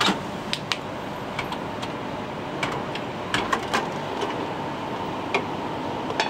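Sharp clicks and knocks of a vending machine's retrieval flap being pulled open and a dispensed can being handled in the tray, the loudest at the start, over steady background noise.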